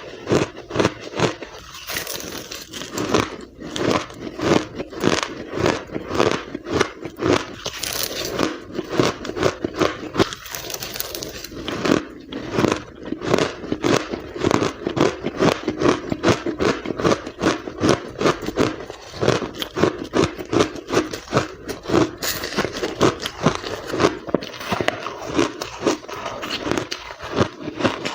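Ice being bitten and chewed close to the microphone: a dense, continuous run of crisp crunches, several a second.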